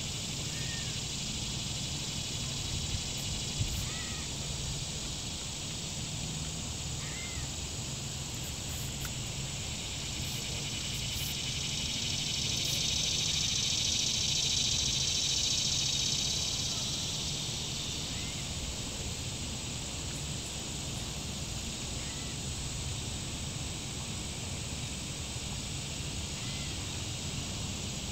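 Outdoor summer ambience: a steady high insect drone that swells and fades for several seconds in the middle, with a few short bird calls scattered through it.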